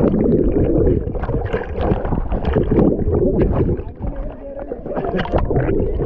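Water splashing and sloshing close to the microphone in irregular bursts, the sound of swimming strokes moving through a pool of water.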